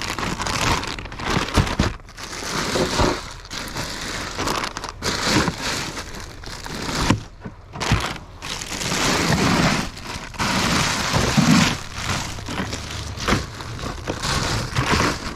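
Irregular rustling and crinkling, coming in uneven bursts with short pauses: handling noise as the catch is brought out of the kayak for a look.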